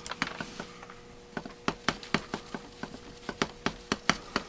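Quick run of small sharp metal clicks, about four a second, starting about a second and a half in: needle-nose pliers working a stuck power piston up out of its bore in a Rochester B carburetor's air horn. A faint steady hum runs underneath.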